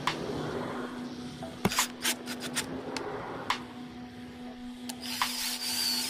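Clicks and rattles of a screw being handled and seated on a cordless drill's bit, then about five seconds in the cordless drill runs briefly with a high whine, driving a screw into a PVC part.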